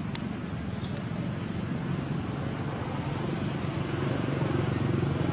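Steady low outdoor background rumble, like distant traffic, with a few faint high chirps near the start and again after about three seconds.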